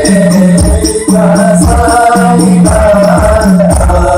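A male voice singing a long, ornamented Arabic Maulid chant through a PA system, over a steady low drum beat.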